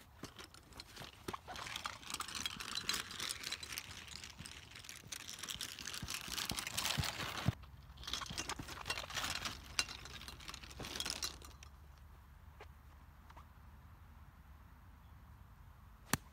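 Golf clubs rattling and clinking in a carried golf bag along with running footsteps on grass, in two stretches, then quieter; about sixteen seconds in, a single sharp crack of a golf club striking the ball.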